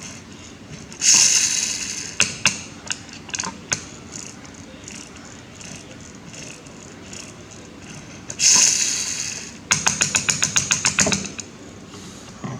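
Two short hissing bursts, each fading over about a second, like a spray being let off, the second followed by a quick run of about a dozen sharp clicks; scattered light clicks and knocks in between.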